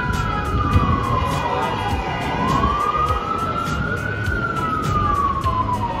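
Emergency vehicle siren in a slow wail, rising and falling in pitch twice, over the low rumble of city street traffic.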